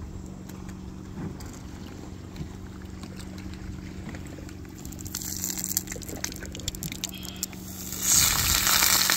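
Tortilla pieces frying in hot lard in a pan. A faint sizzle with small crackles starts about five seconds in and turns loud about eight seconds in as the pieces are turned, over a low steady hum.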